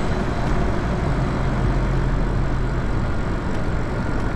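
Steady riding noise from an electric bike moving along a street: tyre and wind rush with a low hum.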